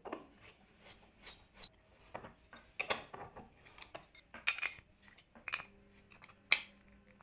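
An M14 steel hex bolt being turned into a hole in a wooden block, first by hand and then with a wrench: irregular light metallic clicks and clinks, a few with a short high ring.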